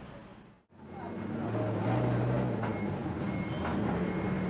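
Roadside street ambience: a passing motor vehicle's engine hum, loudest about halfway through, over traffic noise and faint background chatter. A short dip to silence less than a second in marks an edit.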